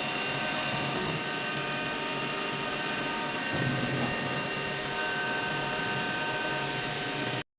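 CNC milling machine running steadily, a constant mechanical whine with several steady high tones over a noisy hiss, cutting off abruptly near the end.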